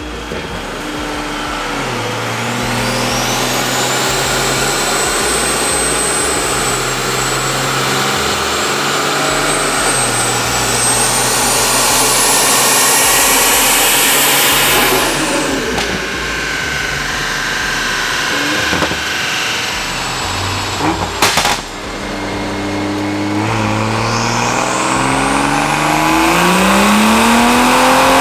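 Toyota Supra's turbocharged B58 inline-six with a Remnant big-turbo kit, making a full-throttle dyno pull. The revs climb with a rising turbo whine that cuts off suddenly about halfway through. A short sharp bang comes a few seconds later, then the revs climb again near the end.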